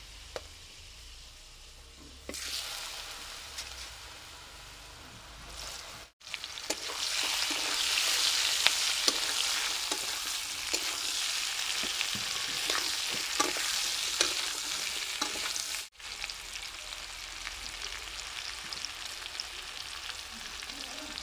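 Diced raw papaya frying in hot mustard oil tempered with fenugreek seeds in a kadai: a steady sizzle with scattered sharp clicks. The sizzle grows louder about two seconds in, is loudest in the middle, and breaks off abruptly twice.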